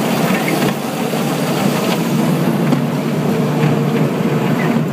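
Kids' ride-on train running with a steady low rumble.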